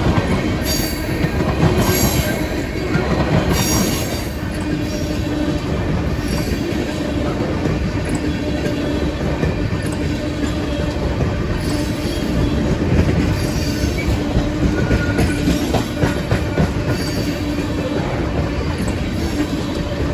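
Empty crude-oil tank cars rolling past: a steady rumble of steel wheels on rail with clacks every second or two as the wheel sets cross the rail joints. From about four seconds in, a thin steady squeal from the wheels rides over it.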